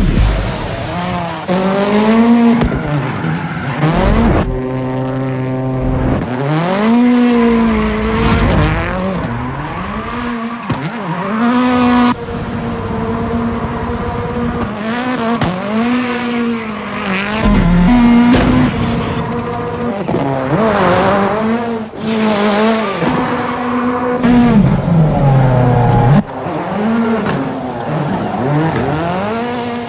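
Ford Fiesta rally car's turbocharged four-cylinder engine revving hard. Its pitch climbs and drops again and again through gear changes and throttle lifts, with tyre squeal as the car drifts. The sound changes abruptly at several edit cuts.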